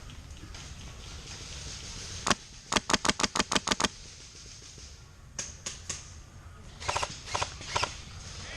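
Airsoft gun firing: a single shot, then a fast string of about eight shots, then more shots in short groups.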